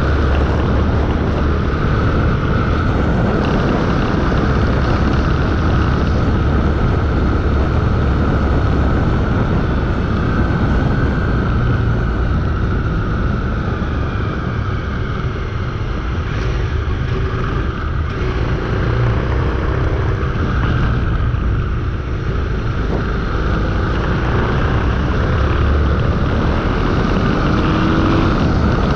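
Motorcycle riding along, its engine running under way beneath heavy wind rush on the microphone; the engine note rises and falls a little as the speed changes.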